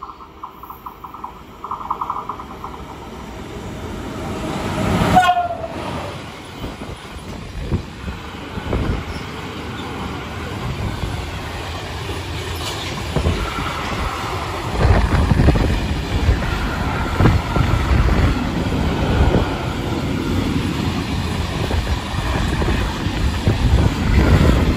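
A Trenitalia E.405 electric locomotive rushes past at speed, sounding its horn as it draws level about five seconds in, the pitch sliding down as it goes by. A long freight train of empty flat wagons follows, rumbling and clattering over the rail joints, growing louder from about fifteen seconds in.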